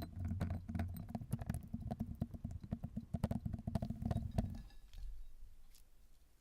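Hands squishing and pressing crunchy slime made with fishball beads, a squelchy run of many quick crackles and pops that dies away about four and a half seconds in.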